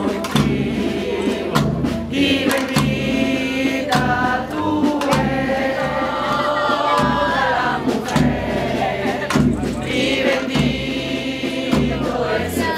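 Choral religious music: a choir singing held, flowing phrases over a steady low accompaniment.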